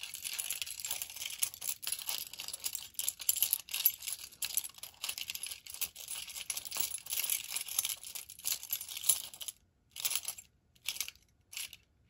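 A bunch of car keys on a keyring jingling as they are shaken close to the microphone: continuous jangling for about nine seconds, then a few short shakes with brief silences between them near the end.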